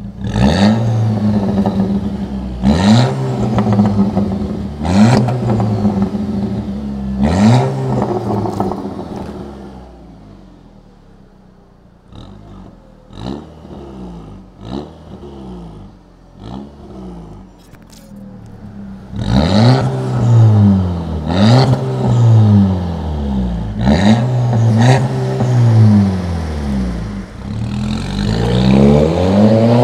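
Audi A5 2.0 TFSI turbocharged four-cylinder revved through a tuned exhaust with a vacuum valve and the stock resonator removed: four quick blips of the throttle, a quieter stretch of idle with a few small pops in the middle, then more revs and a longer rising rev near the end.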